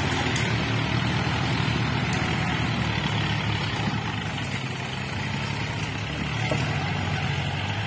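Diesel engines of a John Deere and a Kubota tractor running steadily under load as one tows the other out of deep mud.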